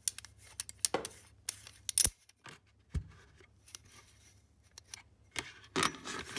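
Clutch friction plates being handled and set into a plastic ice cream pail: a scatter of light, sharp clicks and clatters, busier near the end.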